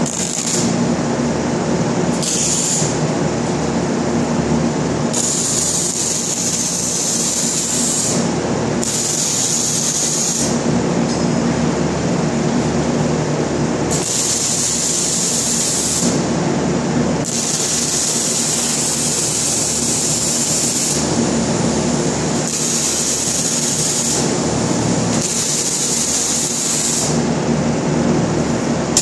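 Electric arc welding on steel frames: the hiss of welding arcs, starting and stopping in bursts of one to four seconds, about seven times, over a steady low hum.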